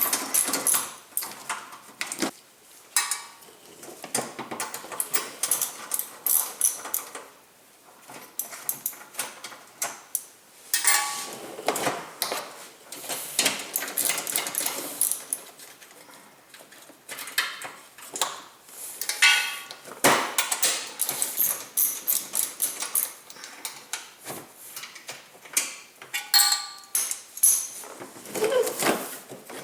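Hand tools working on the screws of a car's engine undercover: irregular metallic clicks, clinks and knocks, some ringing briefly, as the screws are undone and the cover is taken off.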